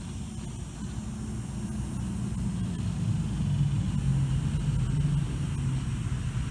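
Micro-scale RC rock crawler's brushless motor and gear train whirring as it drives over rocks. The whir shifts in pitch and gets louder about halfway through as the truck climbs.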